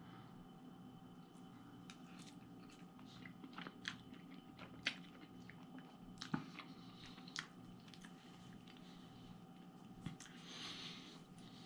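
Faint sounds of a man eating a forkful of spaghetti: quiet chewing, with scattered light clicks through the middle as he eats.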